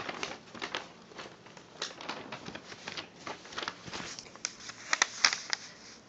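Paper rustling and crinkling as a large folded instruction manual is opened out and spread flat: a run of irregular crackles, a few louder ones about five seconds in.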